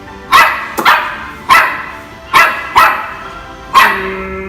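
A dog barking six times in sharp, loud single barks, spaced irregularly about half a second to a second apart.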